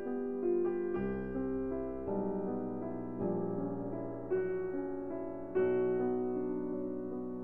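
Background piano music: a slow melody of held notes over chords, a new note or chord about once a second.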